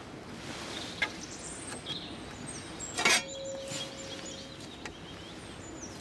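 Birds chirping against a steady outdoor hiss, with a few knocks and clatters of long-handled tools being lifted out of a tractor cab; the loudest knock comes a little after three seconds in, followed by a brief steady tone.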